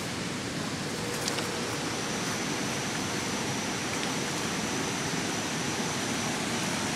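Steady, even rush of river water pouring over a low dam.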